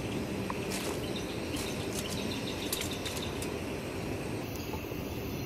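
Steady outdoor ambience with scattered faint, short high chirps and ticks.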